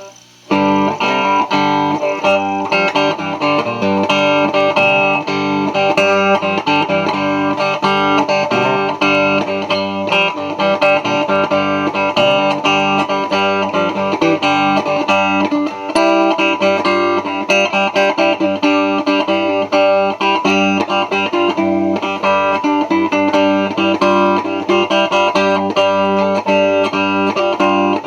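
Electric cigar box guitar with a single-coil alnico pickup, played with a slide through an amp: a continuous run of plucked, slid notes that starts abruptly about half a second in.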